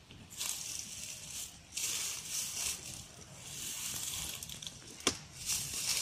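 Dry rustling and crunching in irregular bursts about a second long, with a sharp click about five seconds in.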